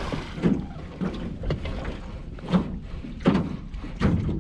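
Small waves slapping against the hull of a jon boat, a series of irregular knocks about once a second, with wind on the microphone.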